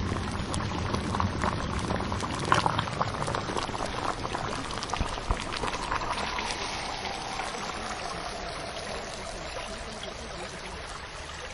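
Water bubbling and splashing: a steady noise full of small crackles, a little louder in the first half.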